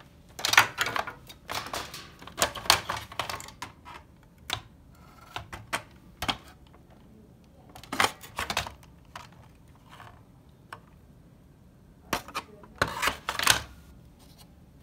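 Plastic housing and internal parts of a portable CD player being handled and pried apart by hand: irregular clicks, clacks and scrapes of plastic in clusters, with quieter gaps between.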